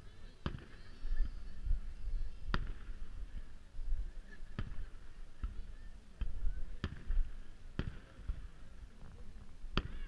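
Aerial fireworks shells bursting, about eight sharp bangs at irregular intervals, the loudest about two and a half seconds in and near the end, over a low rumble.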